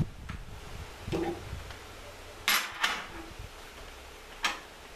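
Metal clinks of an open-end wrench against the freshly fitted plug and the aluminium manifold of a hydraulic lift pump: two sharp clicks close together about halfway through and one more near the end.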